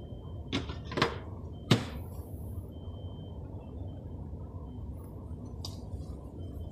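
Three short knocks in the first two seconds, the third the loudest, over a steady low background rumble.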